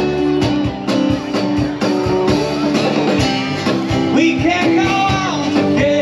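Live band playing through a PA system, with acoustic and electric guitars and drums and a man singing.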